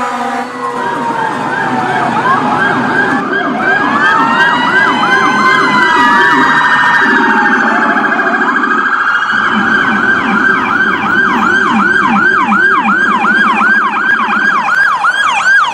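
Electronic emergency-vehicle siren sounding loudly in a fast yelp that sweeps up and down about two to three times a second. Through the first half a slower wail rises and falls over it.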